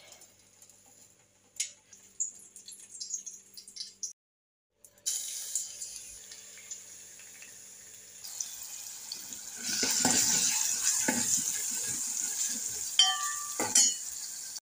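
Oil sizzling in a steel pot, rising to a much louder crackling sizzle as chopped onion goes into the hot oil about two-thirds of the way through. Near the end a steel ladle stirs the onions, clinking against the pot a few times.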